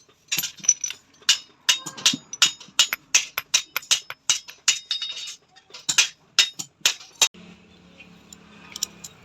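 Light hammer taps on small steel pieces, about three to four a second, each with a short metallic ring. The tapping stops about seven seconds in and a low steady hum takes over.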